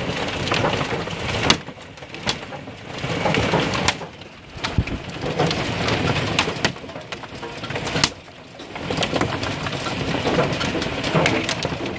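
Hail pelting down, hailstones striking a window and a wooden deck in a steady clatter of sharp clicks and knocks.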